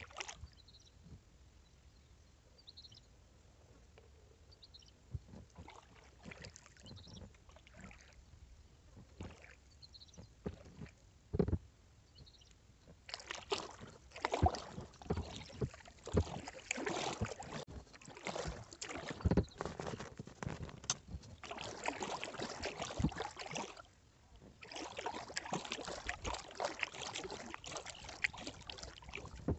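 Kayak paddling on calm lake water. It is quiet at first, with a few drips and a single knock, then from about halfway there is steady splashing and dripping from the paddle blades, broken by a short pause a few seconds before the end.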